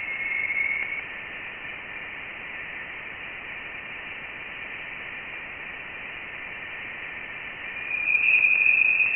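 Voyager 1 plasma wave data played as sound: a steady hiss, with a faint whistling tone in the first second and a louder, slightly higher tone about eight seconds in. The tones are the interstellar plasma vibrating when a solar shockwave passes through it.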